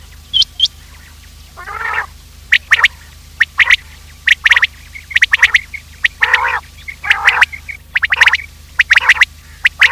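Common quail calling: short groups of sharp, high notes repeated over and over, with a few lower, rougher calls among them. A steady low hum lies underneath.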